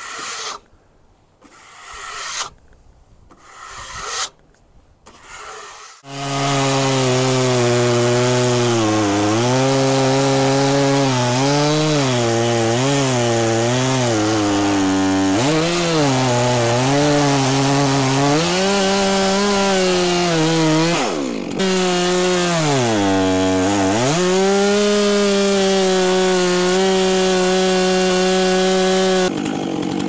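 A stiff hand brush sweeping sawdust off a freshly sawn white oak slab in several strokes. About six seconds in, a Stihl chainsaw cuts into a white oak log; its engine pitch dips again and again as the chain bites into the wood. Near the end the pitch holds high and steady because the chain has quit cutting, dulled on metal buried in the log.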